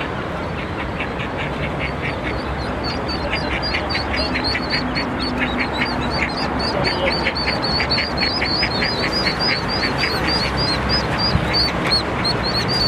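Ducklings peeping: a rapid, high-pitched run of short calls, several a second, over steady road-traffic noise.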